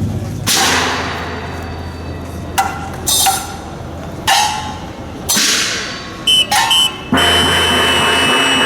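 Dragon-boat percussion: loud, irregular strikes, each with a short metallic ring, about nine in all. About seven seconds in they give way to a steadier, louder stretch with a high tone held over it.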